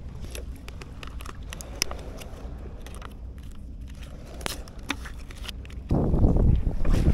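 Small clicks, crackles and scrapes of fishing tackle being handled: fishing line and a lure packet worked by hand over a tackle bag. About six seconds in, a much louder low rush of wind on the microphone sets in.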